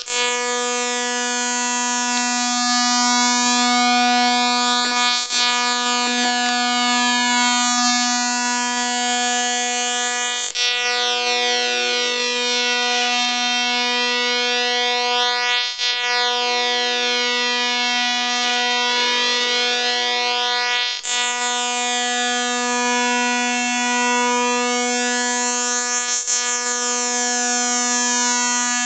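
A steady electronic buzzing tone held on one low note with many overtones. It stops briefly and restarts about every five seconds: a looping synthesized sound effect.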